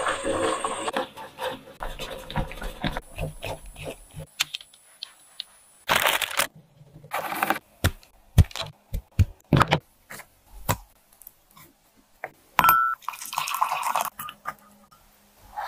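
Homemade ginger brown sugar: syrup bubbling in a steel pot at the start, then dry crackling snaps as the set slabs are broken apart by hand, then water pouring into a glass mug near the end.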